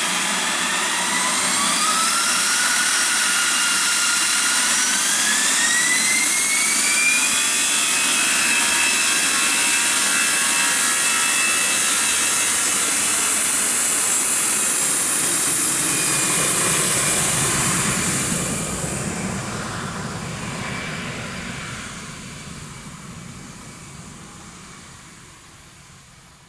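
Jet airliner's engines at take-off thrust during the take-off roll. The whine rises in pitch over the first several seconds and then holds steady. From about two-thirds of the way in, the sound fades as the aircraft speeds away down the runway.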